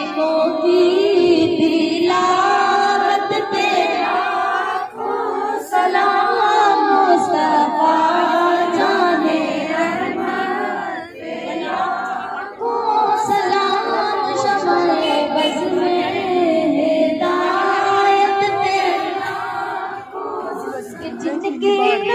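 A group of women's voices singing a devotional naat together, without instruments.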